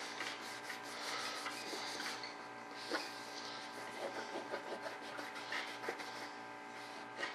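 Hands rubbing thin glued-on cutouts down flat onto a board to bed the glue: a soft, irregular scuffing of skin sliding over paper-thin pieces.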